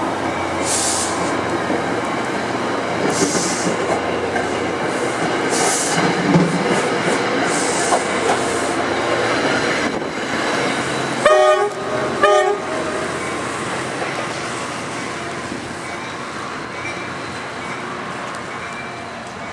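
Train passing with a steady rumble of wheels on rail and a high hiss flaring every couple of seconds. A little past the middle come two short blasts of the train horn. After them the rumble slowly fades.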